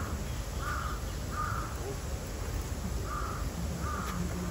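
A crow cawing in pairs of short, harsh caws: two caws about a second in, a pause, then two more near the end, over a steady low background rumble.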